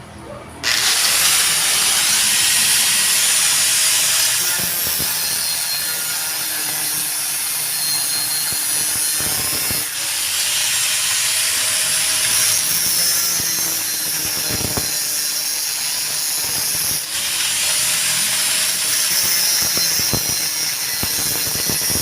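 Angle grinder cutting into steel exhaust pipe during a muffler replacement: a loud, harsh, continuous hiss that starts suddenly about half a second in, with its pitch wavering as the load on the disc changes.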